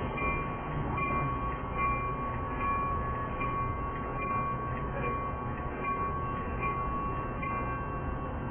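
Grade-crossing warning bell ringing over the low rumble of a Metra commuter train standing at the platform. The bell's main tone drops out about a second before the end.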